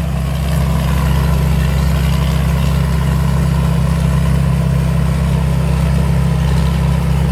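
A Chao Chang X Series combine harvester running steadily while harvesting rice, a constant low drone that does not change.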